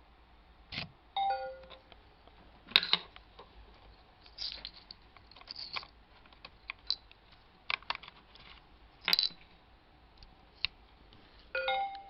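Plastic-and-metal clicks and scrapes of a USB flash drive's plug being pushed into and pulled out of a laptop's USB sockets. About a second in, a falling two-note Windows XP device-removal chime sounds, and near the end a rising two-note device-connect chime sounds as the stick is recognised.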